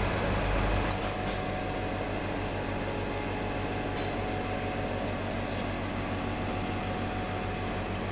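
Small airbrush compressor humming and pulsing steadily while idle between sprays, with a brief faint hiss of air about a second in.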